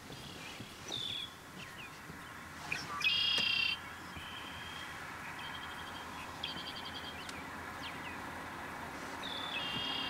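Songbirds calling in a marsh: several short, clear, steady-pitched calls, the loudest about three seconds in, a rapid trill-like one in the second half and another near the end, over a steady outdoor hiss.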